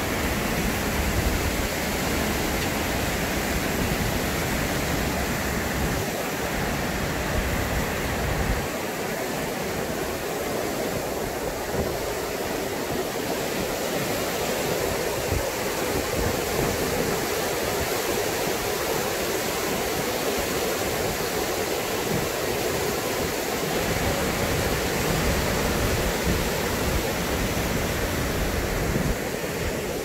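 Steady rush of an artificial waterfall's water cascading over boulders into the canal below.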